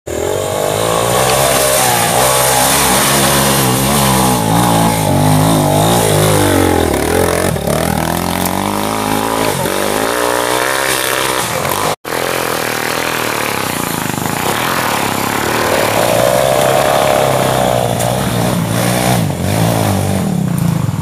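Off-road trail motorcycle engines revving hard under load as the bikes climb a muddy dirt track. The pitch rises and falls over and over with each burst of throttle. The sound cuts out abruptly for an instant about halfway through, then comes back.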